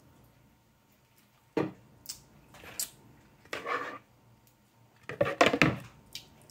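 A metal spoon knocking, scraping and clinking against a plastic container and a plate as sauce is scooped onto a tortilla. There are a few separate knocks, a short scrape in the middle, and the loudest clatter near the end.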